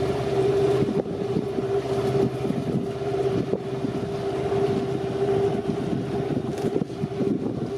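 Motorboat engine running at a steady speed, a constant droning hum, with wind buffeting the microphone.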